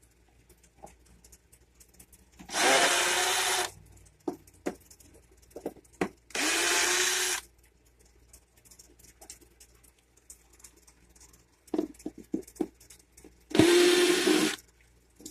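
Power drill running in three short bursts of about a second each, backing out the screws that hold the air conditioner, with light clicks and knocks between them.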